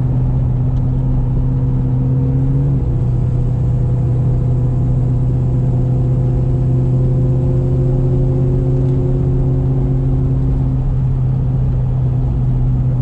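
Supercharged 4.6-litre DOHC V8 of a 2003 Ford Mustang Mach 1 droning steadily as the car drives, its note stepping down slightly about three seconds in.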